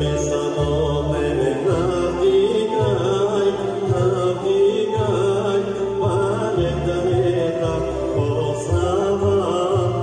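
A song: a voice sings a wavering melody over instrumental accompaniment, with a bass that steps from note to note every second or so.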